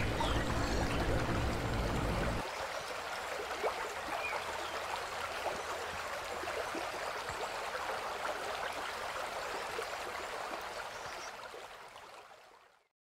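Steady outdoor ambience, a rushing hiss like running water, with a few faint chirps and ticks. A low rumble drops away suddenly about two and a half seconds in, and the whole fades out near the end.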